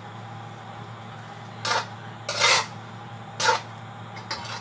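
Slotted spatula scraping and tossing spaghetti in a metal pan: four short scrapes, over a steady low hum.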